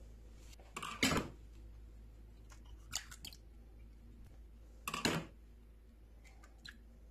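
Raw eggs being cracked open one after another into a glass bowl: three short, sharp shell cracks about two seconds apart, with a few fainter clicks between.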